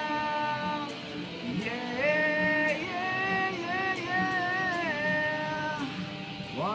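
A voice singing long held, wordless notes that slide between pitches, over a plucked acoustic guitar.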